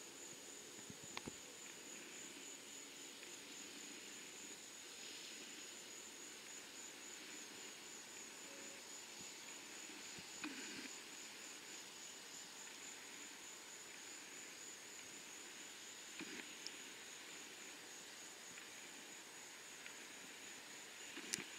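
Quiet outdoor ambience with a steady high-pitched insect drone and a few faint clicks.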